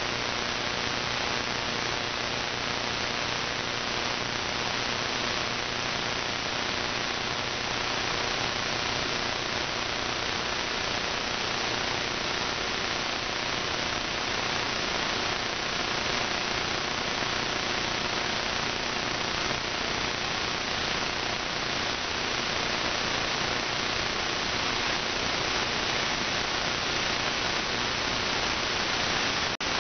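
Steady radio static hiss from a web SDR receiver tuned to the AM band between stations, with faint steady hum tones beneath it. It cuts out for a moment near the end.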